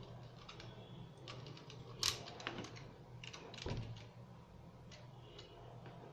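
Hand tool cutting the end of an RG6 coaxial cable: scattered faint clicks, with a sharper click about two seconds in and another near four seconds.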